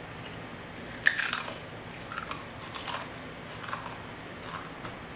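A Pringles potato crisp bitten with a sharp crack about a second in, then chewed in a run of irregular crunches, about one or two a second.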